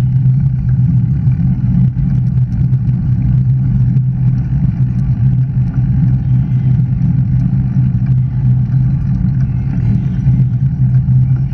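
Steady low rumble of wind and tyre noise picked up by a bike-mounted action camera while riding, with a faint sheep bleat about six and a half seconds in.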